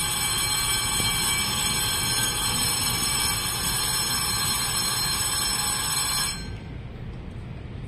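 Electric platform departure bell ringing continuously, signalling that the train is about to leave, then cutting off suddenly about six seconds in. A low rumble from the waiting EMU900 commuter train runs underneath.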